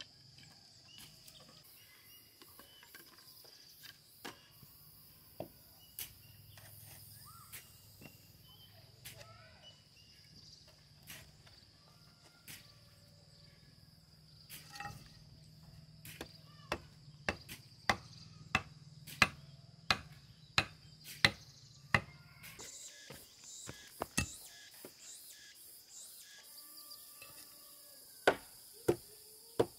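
Sharp knocks of a hand tool striking, spaced out at first, then a quick run at about two a second before easing off. A steady high-pitched insect drone runs underneath.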